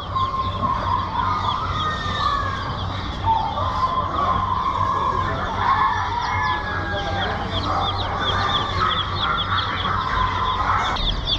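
Many caged birds chirping and calling at once: quick high chirps run throughout, mixed with longer sliding calls, over a low steady hum.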